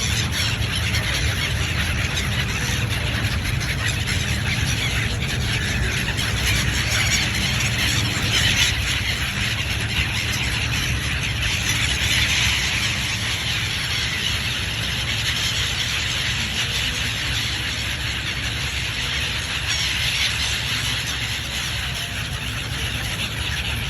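A large flock of birds calling all at once in a dense, continuous chatter of high squeals, over a steady low rumble.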